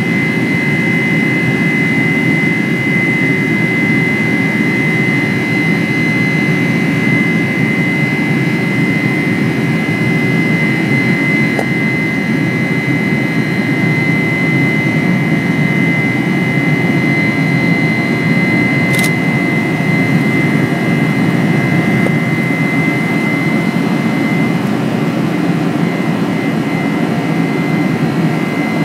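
Steady cabin roar of a Boeing 747-400ER's GE CF6-80C2 turbofans during the climb after takeoff, heard from a window seat over the wing: a dense low rumble with a steady high whine above it. A brief high tick comes about two-thirds of the way through.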